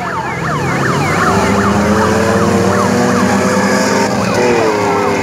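A modified 4x4's engine running at high revs as it ploughs through deep mud. Its pitch climbs slowly, then dips about four and a half seconds in. Over the first second or so, a siren-like sound repeats fast falling whoops, about four or five a second.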